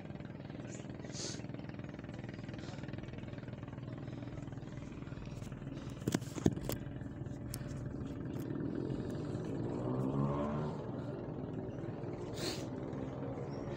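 A motor engine runs steadily, then rises in pitch and grows louder for a few seconds in the second half before settling back. A few sharp clicks come about six seconds in.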